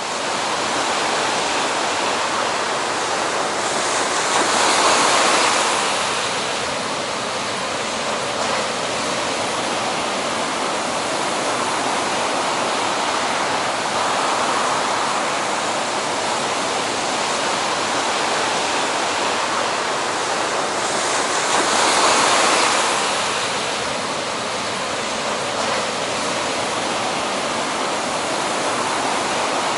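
Heavy ocean surf breaking: a steady rush of waves and whitewater, swelling louder twice as large waves break.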